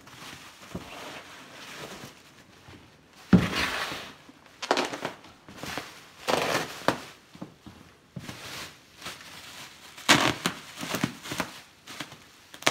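Plastic bubble wrap crinkling and rustling in irregular bursts as it is pulled and cut open, with a sharp knock about three seconds in.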